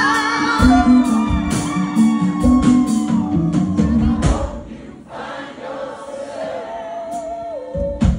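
Live band playing with a singer: drums and a stepping bass line under the voice, then about four seconds in the drums and bass drop out, leaving singing and held notes more quietly, with a single hit near the end.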